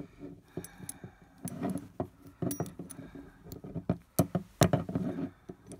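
Padlock keys clinking and rattling against the Brinks padlock as they are worked free, in irregular clicks with short metallic rings.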